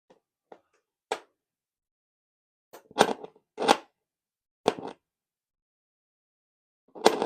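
About five separate sharp plastic clicks and clunks from a 1980s boombox being handled, with near silence between them.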